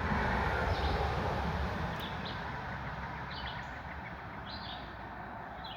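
Birds chirping in short calls, roughly one a second, over a low outdoor rumble that swells near the start and slowly fades.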